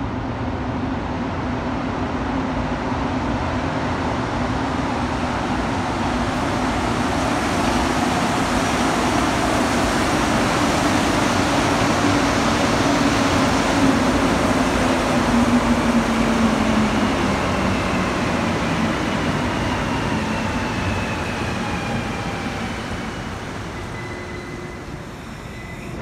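Rubber-tyred Montreal Metro Azur (MPM-10) train pulling into the station. Its rumble swells as it rolls in alongside and is loudest about halfway through. Its motors then whine down in pitch as it brakes toward a stop near the end.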